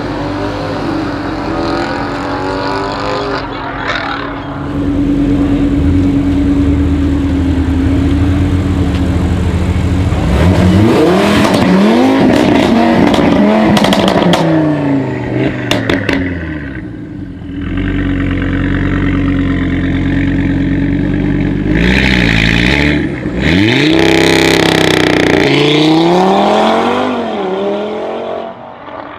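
Audi RS3 8V's turbocharged five-cylinder engine through a decatted Armytrix exhaust, very loud: revs are held steady for several seconds as in a launch-control hold, then the pitch sweeps up and down as the car launches and accelerates. This happens twice.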